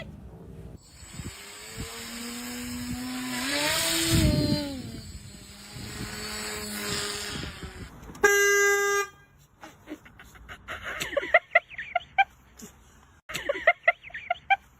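Motor vehicle sound with one short horn blast about eight seconds in, followed by a string of short, sharp, pitched sounds.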